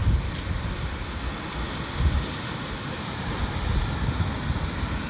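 Wind buffeting the microphone: uneven low rumbles over a steady rushing noise.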